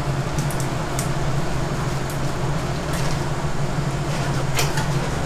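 Steady low hum of kitchen machinery with an even background hiss, broken by a few faint clicks and taps from the worker's handling.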